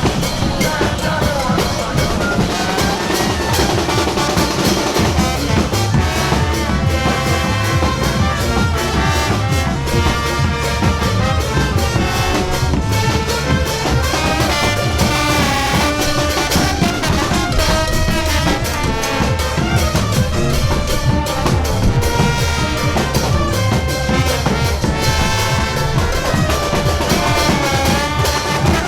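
Music led by brass, trumpets and trombones, playing a melody over a steady drum beat, without a break.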